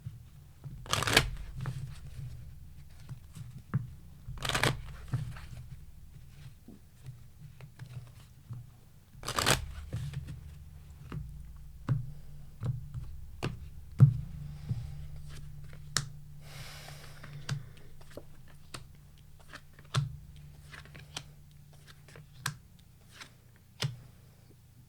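A deck of tarot cards being shuffled and handled: a few longer papery shuffling rustles and many short light clicks and taps of cards, over a low steady hum.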